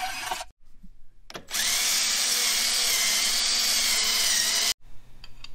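Cordless drill spinning a conical bit against the cut end of a steel inner tie rod held in a vise. It spins up quickly, runs steadily for about three seconds and stops suddenly. Before that, a portable band saw cutting the rod is heard for the first half second.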